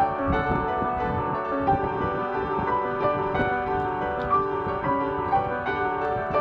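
Background music: soft electronic instrumental with keyboard notes and a steady beat.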